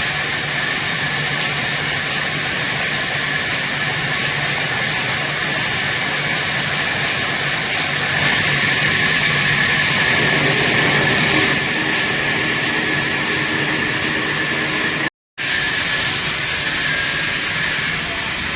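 Sawmill saw running steadily with a high whine, getting a little louder for a few seconds midway.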